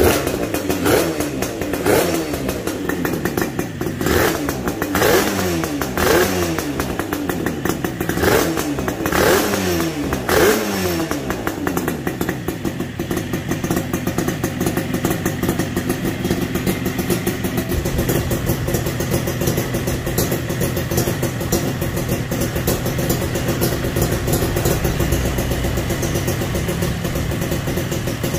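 Home-built two-cylinder two-stroke motorcycle engine, converted from a single cylinder, revved in about eight quick throttle blips, each rising and falling in pitch, over the first ten seconds or so, then settling to a steady idle.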